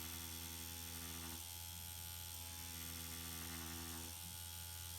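Permanent-makeup machine pen buzzing steadily while drawing hair strokes on practice latex skin. Its hum breaks off briefly twice, about one and a half and four seconds in.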